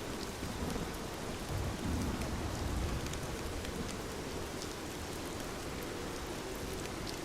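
Steady rainfall with sparse small crackles from a fireplace fire. A low rumble swells and fades about halfway through.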